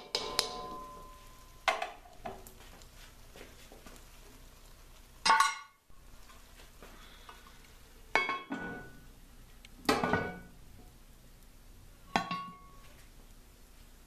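Cast-iron clanks and scrapes from a 12-inch Lodge Dutch oven: a metal spatula knocks against the pot, then the heavy cast-iron lid is set on with a lid lifter. There are about eight sharp metallic strikes, some ringing briefly, and the loudest comes about five seconds in.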